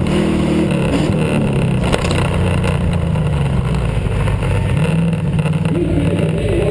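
Truck engine running under load as it drives over dirt, its revs dipping about a second in and climbing again around five seconds, over a heavy rumble picked up by a camera on the outside of the body.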